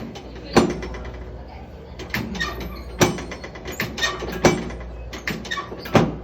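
Chiropractic drop table's pelvic drop section snapping down with sharp clacks as a gentle adjustment is given, four loud clacks a second or more apart with smaller mechanical clicks between them as the section is reset.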